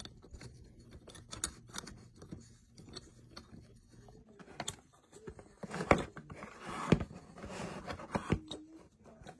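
Handling noise from an air hammer in its plastic blister packaging being turned over by hand: scattered clicks and scrapes, with sharp knocks about six, seven and eight seconds in. The tool is not running.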